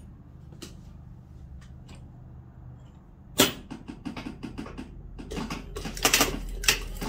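Industrial lockstitch sewing machine over a steady motor hum: a sharp knock about halfway through, then the machine stitching in a run of rapid clicks.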